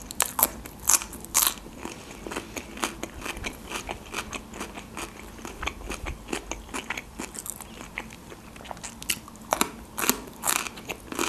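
Fresh cucumber stick being bitten and chewed: a run of crisp crunches, with loud bites at the start and again near the end.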